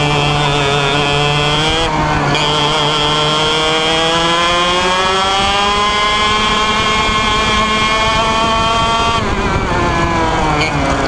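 IAME Leopard 125cc two-stroke kart engine heard onboard at racing speed. Its pitch drops briefly about two seconds in, then winds up steadily for about five seconds as the kart accelerates, falls away about nine seconds in as the driver lifts, and rises again near the end.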